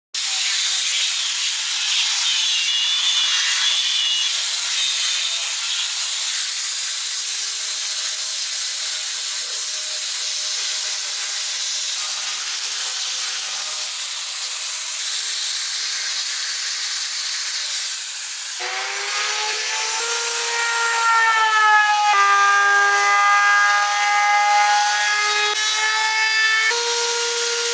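Hand-held power tools sanding and shaping the edges of round holes in a wooden panel. For most of the time a steady, hissing abrasion of a sanding drum on wood; about two thirds of the way through, a motor whine takes over and shifts in pitch as the tool is loaded.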